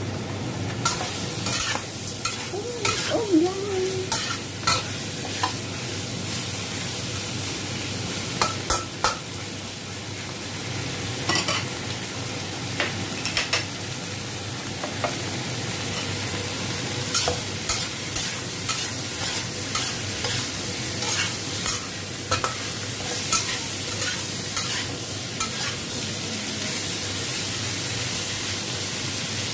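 Whole raw shrimp sizzling in hot oil in a wok, stir-fried with a metal spatula that scrapes and clacks against the pan at irregular moments over a steady frying hiss.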